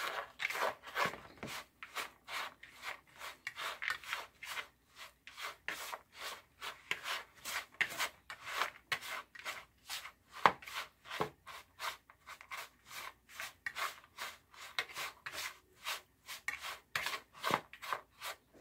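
A spoon stirring shredded zucchini, nuts and dry ingredients together in a mixing bowl: a steady run of scraping, rubbing strokes, about three a second.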